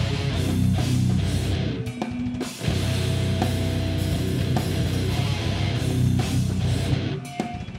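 Heavy metal band playing live: distorted electric guitar and bass guitar riffing over a drum kit. The riff breaks off briefly twice, about two seconds in and again near the end, leaving a note ringing before the band comes back in.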